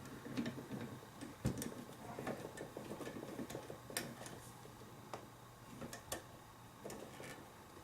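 Faint, scattered clicks and knocks of metal being handled as a small wafer lock is clamped in pliers and set in a vise, with one sharper knock about one and a half seconds in.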